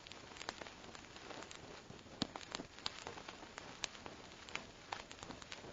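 Faint, irregular sharp clicks and light knocks, several each second, over a low hiss.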